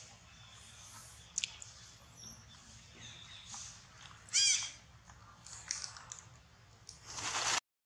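A single short, high animal call with a rising-then-falling pitch, about four and a half seconds in, over faint outdoor background with a light click early on. Near the end a rush of noise builds and then cuts off abruptly.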